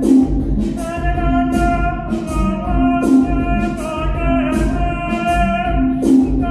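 Live electronic music from a Novation Circuit groovebox and Boss RC-202 loop station: sustained synth chords over a steady beat of kick and hi-hat. The loop repeats about every three seconds, with a falling swoop each time it comes round.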